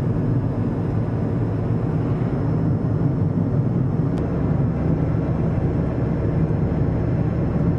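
Steady road and engine noise heard from inside a moving car. About four seconds in, the low rumble shifts deeper.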